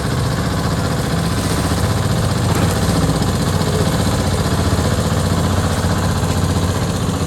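An engine idling steadily, with a low hum under an even rushing noise.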